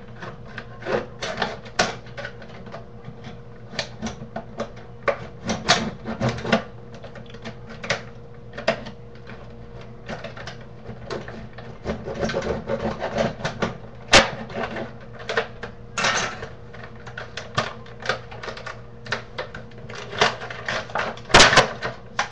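Stiff plastic packaging being wrestled open: irregular crackling, clicking and creaking of hard plastic. There are two sharp snaps, one about two-thirds of the way through and one near the end.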